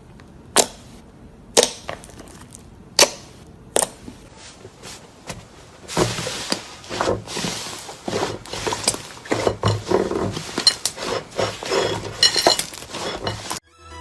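Brittle material cracking and crunching: four sharp single cracks spread over the first few seconds, then a dense run of crackling and crunching from about six seconds in.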